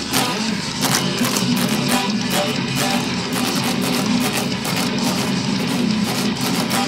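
Extended-range electric guitar playing a fast, rhythmic progressive metal riff without a break.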